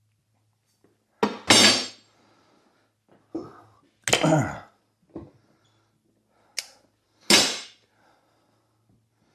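Riding-mower tire's rubber bead being forced over its steel rim with a manual tire changer: about six loud knocks and squeaks, one of them a squeal that slides down in pitch.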